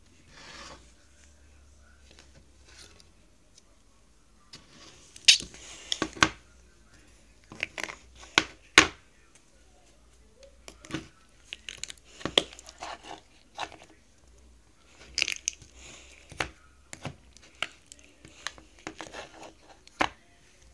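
Pink slime squished in a small clear plastic cup, making the slime's 'farting' noises: irregular sharp squelching pops in scattered clusters, starting about a quarter of the way in.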